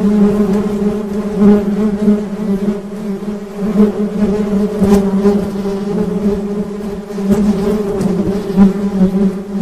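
Honeybees buzzing: a steady droning hum whose loudness wavers and swells.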